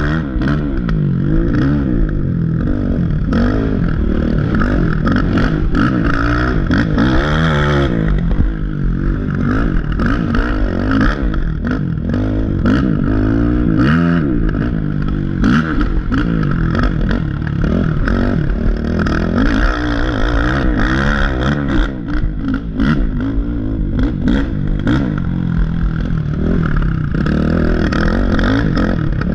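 Race ATV engine heard from on board, revving up and falling off again and again under hard throttle, with frequent short knocks and rattles from the machine over rough ground.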